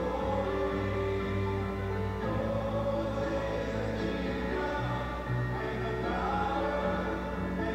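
Slow prelude music of long, held chords sung by a choir, with the low notes moving every second or so.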